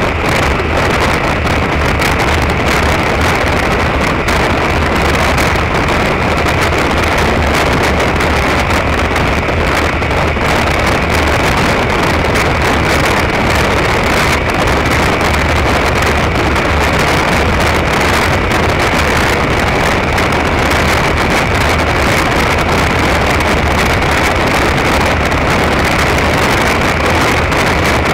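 Derbi Terra Adventure motorcycle cruising at a steady speed, its engine running evenly under heavy wind rushing over the bike-mounted camera's microphone.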